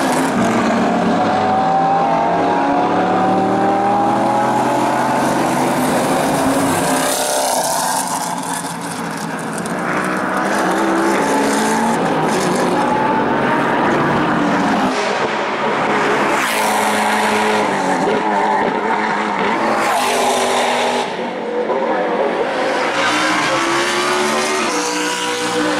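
Sunred Ford GT race car's V8 accelerating hard, its note rising through the revs and dropping back at each upshift, several times over.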